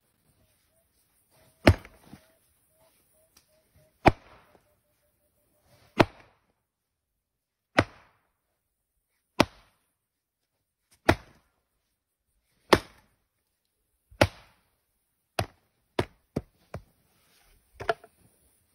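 A wooden pole ramming soil into a wooden brick mould: sharp wooden thuds about every two seconds, coming quicker near the end.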